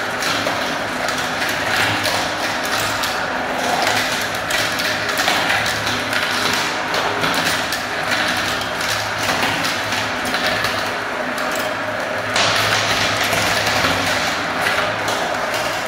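Many small plastic balls and glass marbles rolling round a clear plastic funnel bowl of a toy marble run and dropping through its centre hole into plastic tubes: a dense, continuous rattle and clatter of plastic and glass. About twelve seconds in, the clatter turns brighter and louder.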